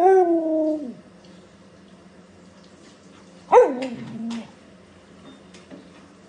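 A Samoyed howling twice: a call in the first second that rises and then holds steady, and a shorter call about three and a half seconds in that slides down in pitch.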